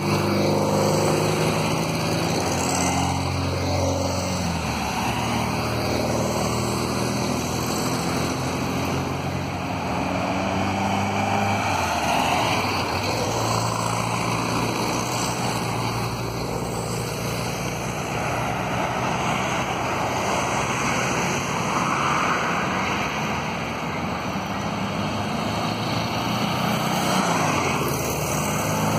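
A convoy of Volkswagen split-screen vans driving past one after another, their air-cooled flat-four engines running. The engine note shifts every few seconds as one van passes and the next comes on.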